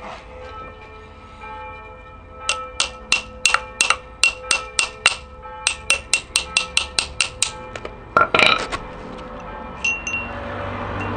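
Rapid series of metal-on-metal taps, about four a second, each one ringing, followed near the end by a short scraping rattle of metal parts.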